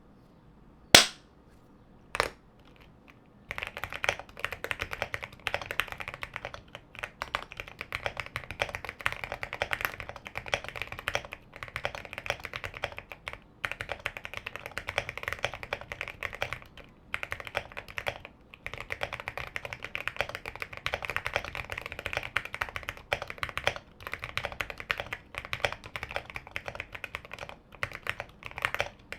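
Two sharp, loud clicks about a second apart. Then continuous fast typing on a QK65 65% custom mechanical keyboard with factory-lubed Gateron Oil King linear switches, MT3 keycaps and an FR4 plate, with a few brief pauses.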